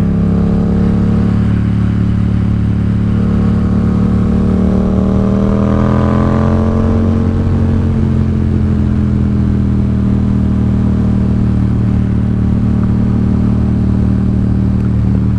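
Yamaha XSR700's 689 cc parallel-twin engine running through a Two Brothers SR1 aftermarket exhaust, the motorcycle cruising at steady speed. The engine note rises slightly about five seconds in, then settles back.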